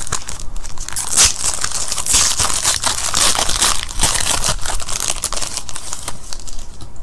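Foil wrapper of a 2015 Certified football card pack being torn open and crumpled by hand: a dense run of crinkling and tearing.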